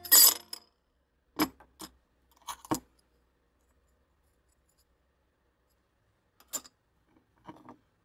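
Metal parts of an electric geyser coffee maker clinking as they are handled and taken apart: the coffee basket and its perforated filter disc. A short clatter at the start and several sharp clinks in the first three seconds, then quiet, then two more clinks near the end.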